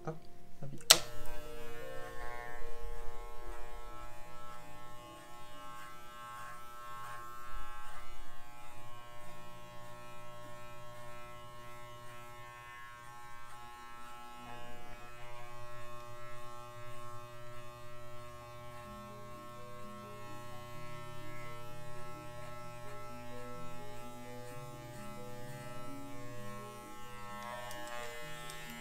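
Electric pet hair clippers buzzing steadily while trimming a miniature schnauzer's coat, starting after a sharp click about a second in. Background music with a shifting melody plays underneath.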